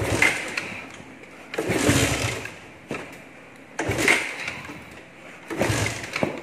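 Carburetted Suzuki Raider 150 motorcycle being kickstarted: four kicks about two seconds apart, each a sharp stroke with the engine turning over briefly without catching. It is kicked because the battery is too low for the electric starter.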